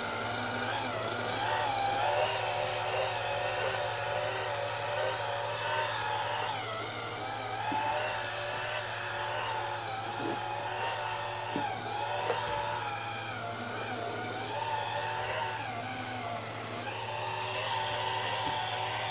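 Vacuum cleaner running steadily, its hose feeding a dog grooming brush that is being drawn through a dog's coat: a constant motor hum with a whine that wavers slightly in pitch as the brush moves.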